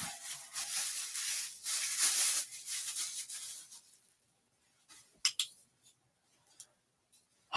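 Packing wrap rustling and crinkling for about four seconds while a part is unwrapped, followed by a few light clicks of the part being handled.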